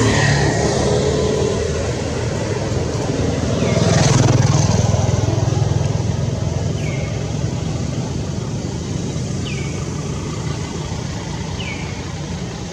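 Road traffic rumbling, with one vehicle passing and getting loudest about four seconds in before fading. A short high falling chirp repeats every two to three seconds.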